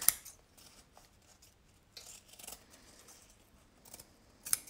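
Fabric scissors snipping through cotton fabric backed with fusible bond web, a few separate cuts with quiet gaps between them. The sharpest snips come just at the start and again near the end.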